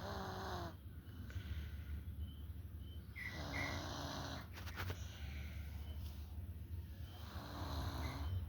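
A sleeping person snoring, one snore about every four seconds, three in all, over a steady low hum.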